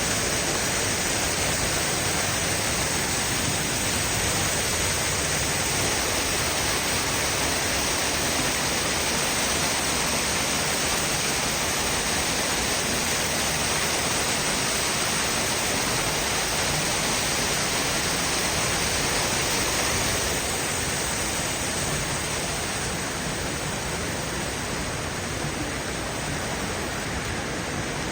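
Steady rushing of water from Kanarra Creek's falls and cascades in the canyon, a little quieter about twenty seconds in.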